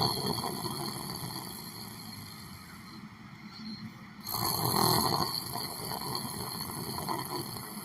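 A sleeping person snoring: two rattling snores, the end of one fading out over the first few seconds and a louder one starting suddenly about four seconds in and trailing off.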